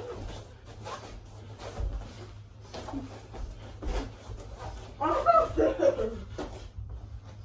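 Taekwondo sparring: dull thuds of feet landing and kicks and punches hitting padded chest protectors, scattered through. About five seconds in comes a louder burst of laughter that lasts over a second.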